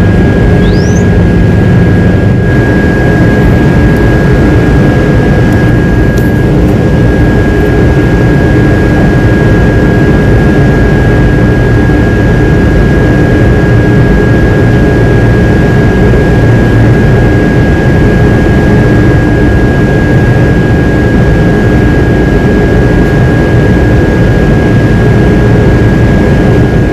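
Loud, steady, low rumbling roar with a constant high-pitched tone running through it, unchanging throughout.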